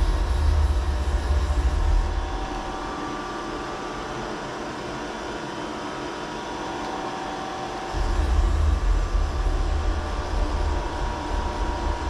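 CNC vertical mill running with a steady hum, and a heavy low rumble for the first two seconds and again from about eight seconds in as the spindle head is driven down on its Z axis.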